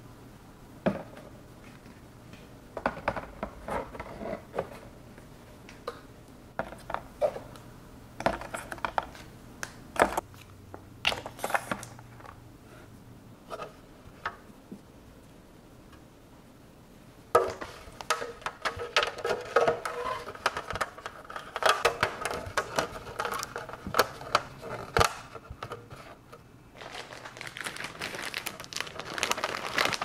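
Hands handling clear plastic fridge bins, cartons and plastic-wrapped cheese. First come scattered light knocks and taps, then a long stretch of dense plastic crinkling and clattering. Near the end a plastic bag of shredded cheese rustles as it goes into a bin.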